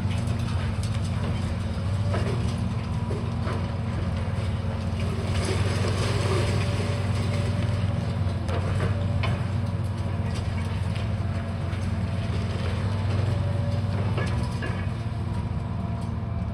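Diesel engine of heavy demolition machinery running steadily, with scattered knocks and clatter on top.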